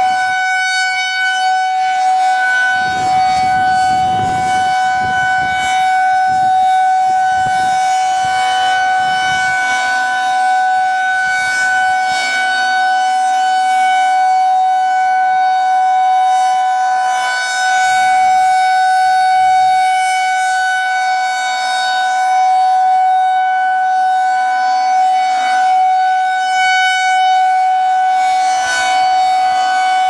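Federal Signal 2001-SRN rotating electromechanical tornado siren sounding a steady tone during a test, its horn turning on the pole while the pitch holds level.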